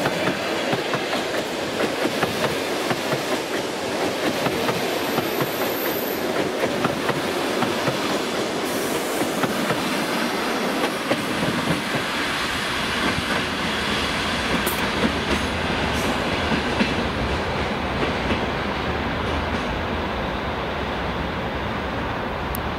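Passenger coaches rolling past, their wheels clattering over rail joints and points. The clatter thins out about halfway through as the last coach pulls away, leaving a low rumble.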